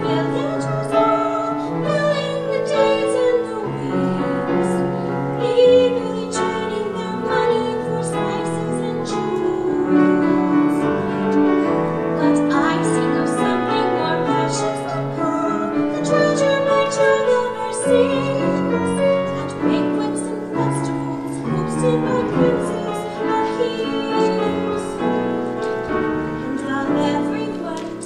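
A classical singer performing an art song in operatic style with vibrato, accompanied by piano.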